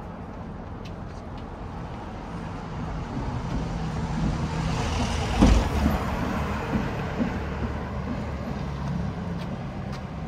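A road vehicle drives past close by. Its engine and tyre noise swell, are loudest just past halfway, then fade away.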